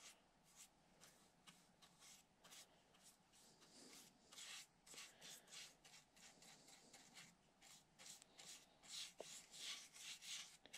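Faint, irregular scratchy strokes of a small acid brush painting epoxy, thinned with rubbing alcohol, onto bare plywood to seal it.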